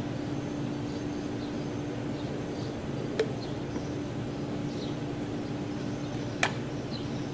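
Backyard background: a steady mechanical hum with faint bird chirps, broken by two sharp clicks about three and six and a half seconds in.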